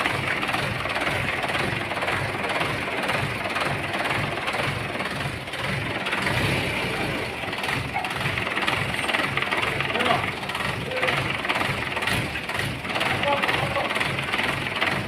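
An engine running steadily with a rhythmic low throb, with voices in the background.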